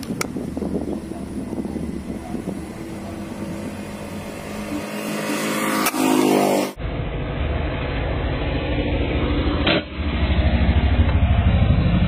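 Road traffic: vehicle engines running with a steady low rumble. The sound changes abruptly about two-thirds of the way in, and a louder engine pulses near the end.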